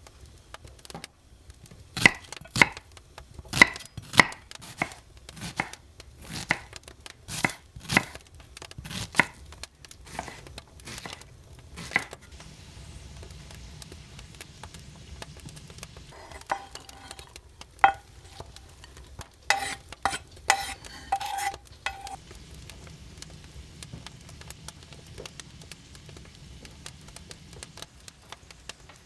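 Knife chopping on a cutting board: a run of sharp chops, roughly two a second, stopping about twelve seconds in. A few scattered knocks and clatters follow a little later.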